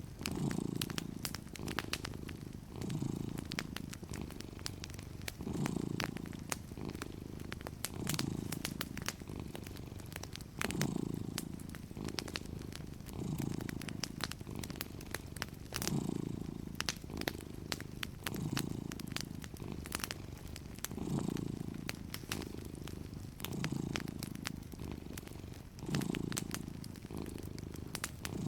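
Domestic cat purring steadily, the purr swelling with each breath about every two and a half seconds, over scattered sharp crackles and pops from a wood fire.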